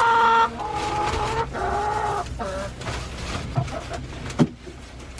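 Hens clucking and squawking, with several drawn-out calls in the first couple of seconds. Two short knocks come near the end.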